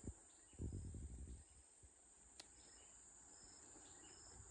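Quiet forest insect sound: a steady high-pitched drone with short high chirps repeating roughly every second. A brief soft low sound comes about a second in.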